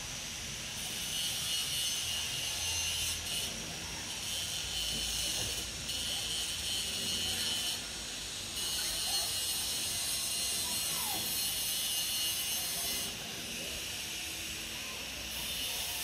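Steady outdoor background noise: a high hiss that swells and drops back every few seconds over a low rumble.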